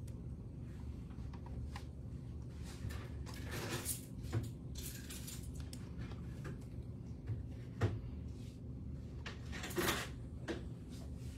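Handling sounds at a table: a few short rustling swishes and scattered light clicks and knocks over a steady low hum.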